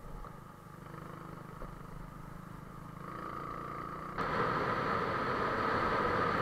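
Motorcycle engine running with road and wind noise while riding, heard from the bike. The sound gets much louder all at once about four seconds in.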